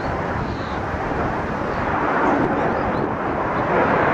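Twin jet engines of a US Navy Blue Angels F/A-18 Hornet flying overhead: a steady rushing engine noise that grows gradually louder.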